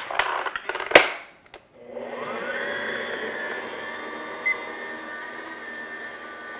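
A stand mixer's head clicks as it is set in place, then about two seconds in its motor winds up and runs steadily on first speed. The dough hook is turning through flour at the start of mixing a stiff bagel dough.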